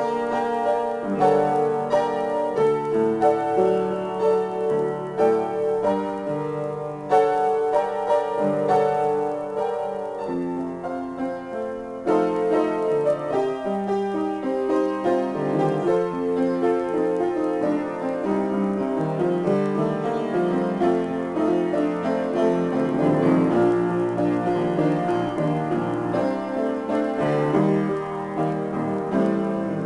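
Solo piano improvisation: dense, sustained chords and rolling figures in the middle and low register, with a louder new passage coming in suddenly about twelve seconds in.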